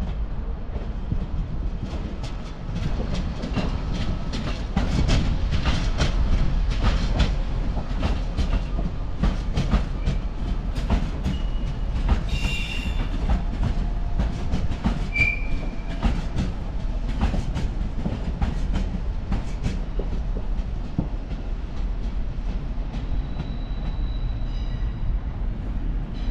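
A train rolling past over rail joints and points: a steady rumble with many quick, irregular wheel clicks, and brief high wheel squeals about halfway through.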